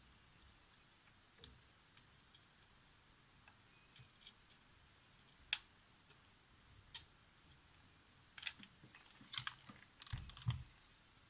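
Small clicks and taps of hand tools handled at close range during fine electronics repair work: a few single clicks spread apart, then a quick run of clicks with a low knock near the end.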